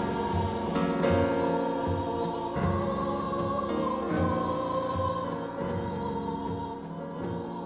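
Dramatic background music with a choir singing over orchestra and a steady low beat.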